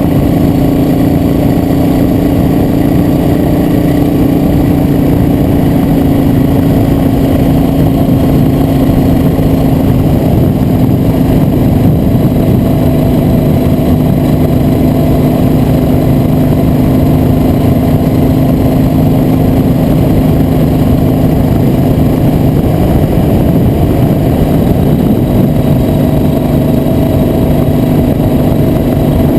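Motorcycle engine running at a steady cruise, its note easing slightly lower over the stretch.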